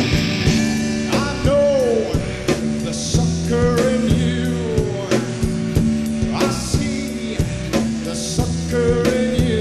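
Rock music with a drum kit and guitar playing an instrumental passage, a lead line sliding between notes a few times.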